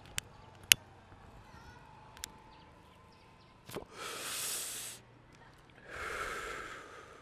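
Two long, breathy exhalations about two seconds apart, each lasting about a second, after a few sharp clicks and a single knock.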